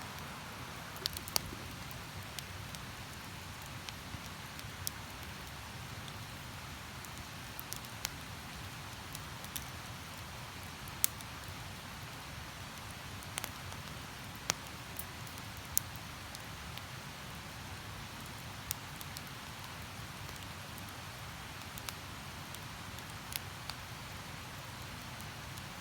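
Wood campfire crackling, with sharp pops every second or two, over the steady rush of a river.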